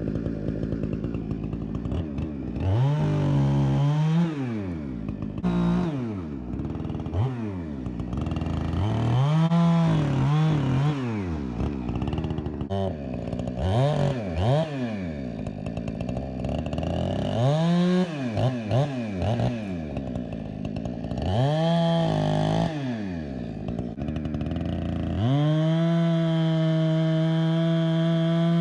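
Two-stroke chainsaw revved up and dropped back to idle over and over, with short bursts of throttle. Near the end it is held at high revs for about three seconds, then drops off.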